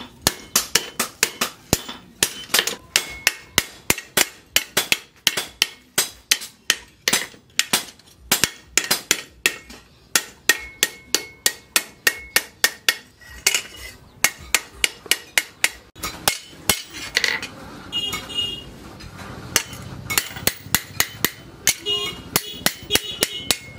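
Hand hammer forging a steel cleaver blade, cut from a tractor disc plough, on a steel post anvil: sharp metal-on-metal blows in a fast, even rhythm of about three a second. About halfway through the hammering stops for several seconds, with only scattered light clinks, and it resumes near the end.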